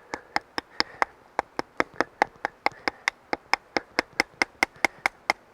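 Rapid, evenly spaced light taps, about four or five a second, as a tapered wooden branch is hammered into the hex hole at the hammer end of a knife handle.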